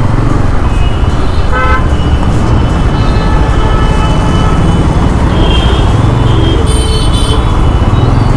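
Busy road traffic heard from a moving motorcycle: a steady engine and road rumble, with vehicle horns honking several times, the longest near the end.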